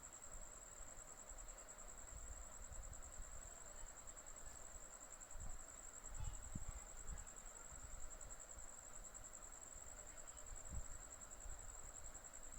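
A cricket trilling in the background: one steady, very high-pitched trill with a fast, even pulse that never stops. A few soft low thumps come about six to seven seconds in.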